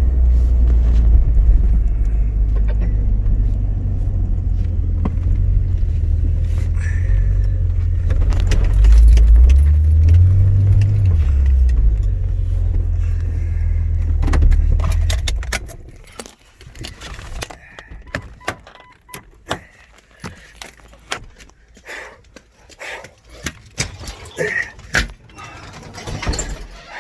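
Car running with a low rumble, its pitch shifting briefly about ten seconds in, that stops about fifteen seconds in as the engine is switched off; then keys jangling and a run of small clicks and knocks.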